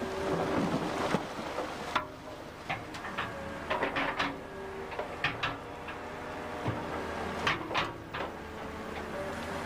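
Excavator running, its toothed bucket knocking and scraping against riverbed stones, with a series of sharp clunks and clatters over the steady engine.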